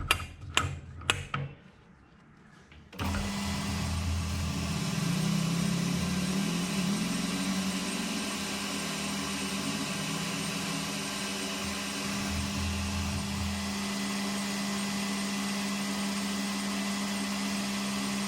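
A few short clicks, then an AL960B metal lathe is switched on about three seconds in and runs steadily with an even motor hum and hiss while a brass bush is machined.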